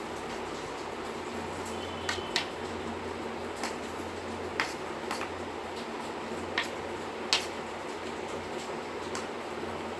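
Puffed rice (muri) crunching as it is chewed: a handful of sharp, irregular crackles over a steady background hum.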